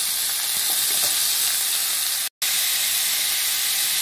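Freshly added sliced vegetables sizzling in hot oil with cumin seeds in a karai: a steady hiss of frying. It cuts out for an instant a little over two seconds in.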